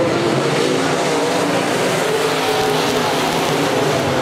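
A pack of IMCA Modified dirt-track race cars running together at racing speed, their V8 engines overlapping. Several engine notes rise and fall against each other as the drivers work the throttle through the turn and down the straight.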